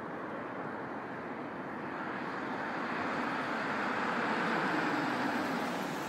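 Street traffic sound effect: a steady wash of road noise from passing cars that swells through the middle and eases off near the end.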